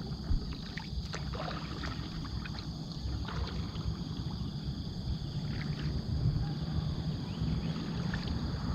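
Small boat moving across the water with a steady low rumble, and a couple of short knocks in the first second or so.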